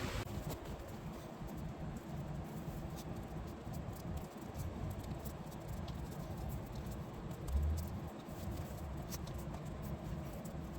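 Hands working a rubber windshield seal onto the glass: scattered small clicks and scratchy rubbing over a low steady rumble, with one dull thump about three-quarters of the way through.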